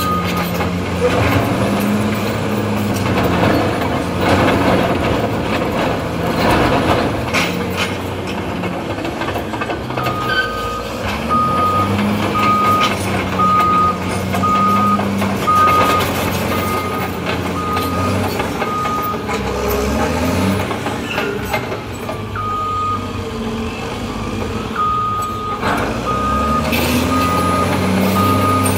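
Caterpillar D7R crawler bulldozer's diesel engine running under load, its pitch rising and falling as it works. A reversing alarm beeps about one and a half times a second for several seconds, starting about a third of the way in, stopping, then starting again in the last part.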